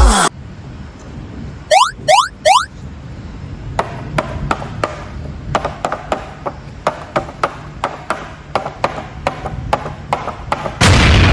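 Light clicks and taps, about two a second, from plastic toy parts being handled, after three quick rising chirps about two seconds in. Near the end a loud boom sound effect cuts in.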